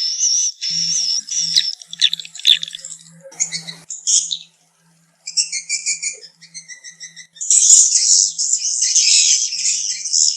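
Recorded swiftlet calls of the kind played to draw swiftlets into a nesting house: high twittering chirps and trills. They break off for about a second around four seconds in, come back as short repeated chirps, and turn into a dense chattering from about seven and a half seconds.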